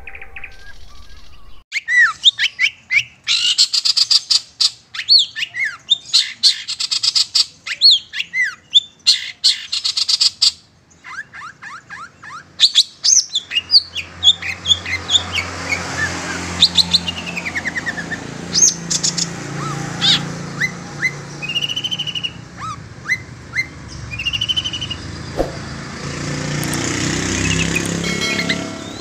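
Long-tailed shrike calling: repeated harsh, rasping scolding calls mixed with sharp chirps, then scattered chirps and short whistles over a steady low hum from about halfway. This is a lure call of the kind used to draw in wild shrikes for trapping.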